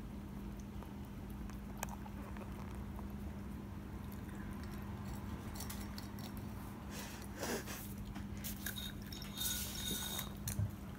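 Cat licking and eating yogurt from a bowl, small wet mouth sounds over a steady low hum, with a couple of brief louder noises in the second half.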